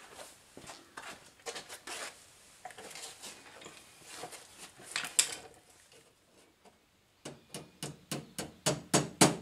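Clinks and knocks of a thin perforated sheet-metal cover and hand tools being handled. About three-quarters of the way through, a run of quick, regular metal taps begins, about four a second, growing louder.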